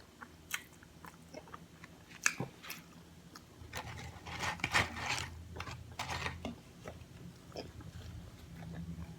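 A person biting into and chewing a crunchy hard taco shell close to the microphone, with several crisp crunches that are loudest around the middle.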